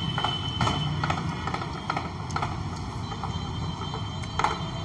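A man chewing a mouthful of bhatura close to the microphone: a scattering of soft, irregular clicks and mouth smacks over a steady hum of street traffic.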